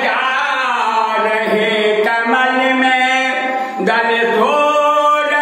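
A man chanting an aarti hymn, in long held notes that glide between pitches.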